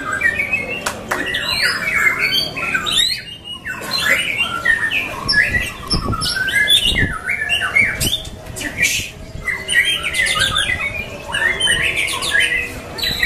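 White-rumped shama singing a fast, varied song of whistles, chirps and harsh notes, with a short pause about three and a half seconds in.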